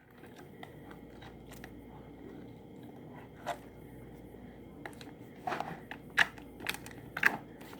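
Faint room noise with scattered small clicks and crackles of a slime container and slime being handled, a cluster of them in the last couple of seconds.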